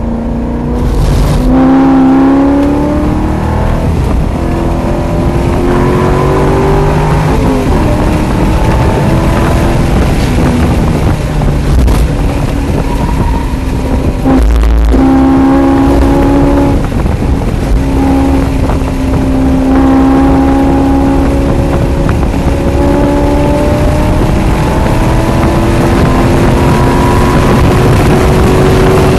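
C5 Corvette Z06's LS6 V8 running hard, heard from inside the cabin, its pitch climbing steadily as the car accelerates from about 50 to 120 mph. The note drops briefly twice, about seven and fifteen seconds in, then rises again.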